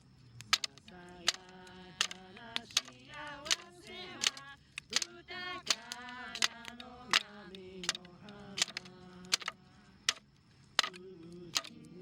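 A voice singing a held, wavering melody to a steady beat of sharp clicks or claps, about one every three-quarters of a second.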